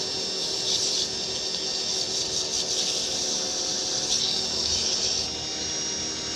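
Wood lathe running while 150-grit sandpaper is held against the spinning pen blank: a steady rubbing hiss over the motor's hum, smoothing out the tool marks.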